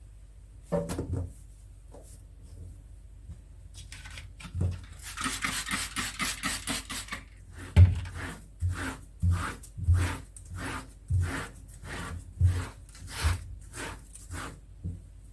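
Hand scrubbing during refrigerator cleaning: a knock about a second in, a couple of seconds of steady hiss, then a run of even back-and-forth rubbing strokes, about one and a half a second.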